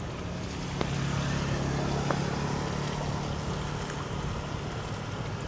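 Strong wind buffeting the microphone over a rushing background, with a steady low engine hum rising shortly after the start and fading out about three and a half seconds in.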